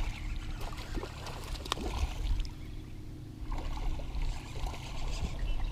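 Water sloshing around a fishing boat, with scattered knocks and clicks of handling, over a steady low hum while a hooked bass is played.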